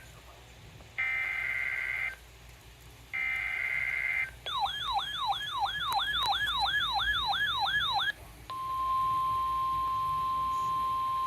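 NOAA Weather Radio SAME header data bursts: the last two of three raspy one-second bursts about two seconds apart, opening a new warning. Then a weather radio's warbling alarm siren for about four seconds, sweeping up and down roughly three times a second, then the steady 1050 Hz weather radio warning tone, which runs on.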